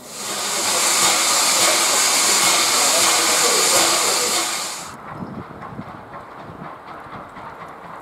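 Er-series steam locomotive letting off steam: a loud hiss for about five seconds that cuts off abruptly, leaving a quieter background with scattered knocks.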